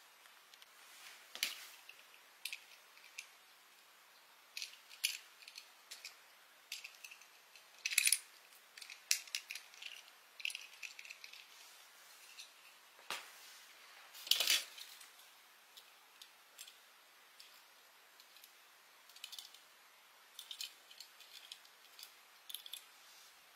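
Light clicks and taps from handling small die-cast toy buses, scattered and irregular, with two louder knocks about eight and fourteen seconds in.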